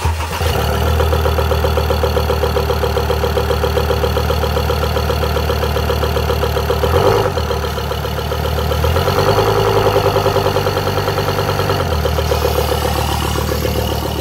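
2017 Ford Ranger's 3.2-litre five-cylinder turbodiesel idling steadily in an engine test. Its pitch rises for a few seconds past the middle as the revs come up, then drops back to idle.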